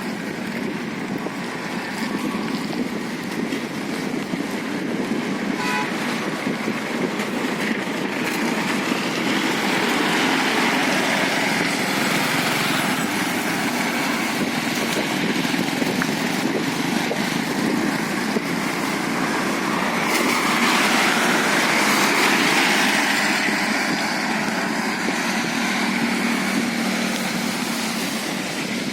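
Road traffic noise on a wet road, swelling as vehicles pass through the middle and loudest about three quarters of the way in, with a brief horn toot about six seconds in.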